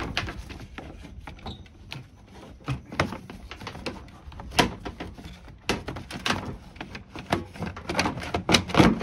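Stiff plastic radiator support cover of a 2006 Honda Civic being slid into place and pressed down against the grille trim: irregular scraping, taps and sharp plastic clicks, the loudest few near the end.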